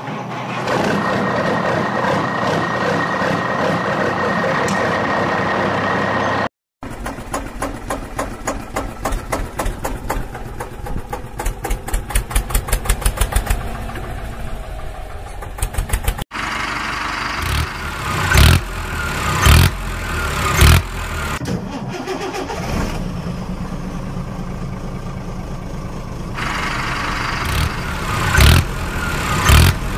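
Vehicle engine sounds in several abruptly cut segments: first a steady running engine, then a rhythmic chugging that speeds up like an engine being cranked and catching, then an engine running with repeated louder revs.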